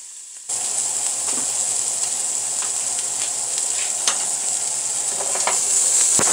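Shrimp searing in hot olive oil in a nonstick pan, a steady loud sizzle that starts abruptly about half a second in, with a few sharp clicks through it.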